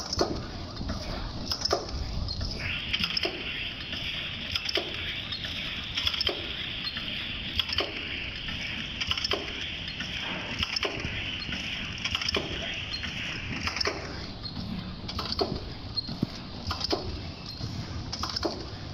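Teabag filling and packing machine running, its mechanism clicking and clacking in a regular cycle about every second and a half, with lighter clicks in between. A steady hiss comes in about two and a half seconds in and stops about fourteen seconds in.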